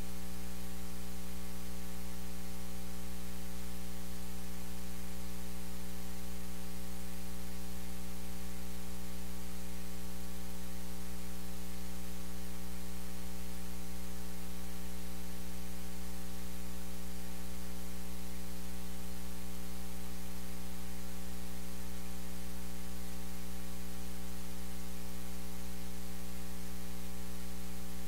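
Steady electrical mains hum with a ladder of buzzing overtones over a constant bed of hiss, unchanging throughout.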